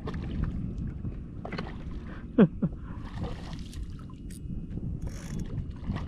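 Wind rumbling on the microphone and water around a kayak, with the gears of a fishing reel clicking as a hooked redfish is fought. About two and a half seconds in, a sharp falling squeak, quickly followed by a shorter one.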